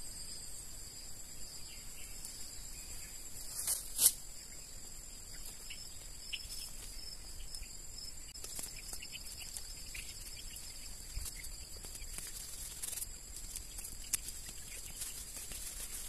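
Rustling and snapping of weeds being pulled up by hand, with a sharp click about four seconds in, over a steady high insect drone.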